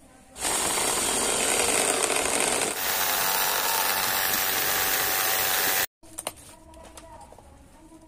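Benchtop drill press running and drilling a bolt hole through a metal RC truck chassis rail at the leaf spring hanger; a loud steady drilling noise that starts about half a second in and cuts off abruptly about six seconds in, followed by faint clicks of small parts being handled.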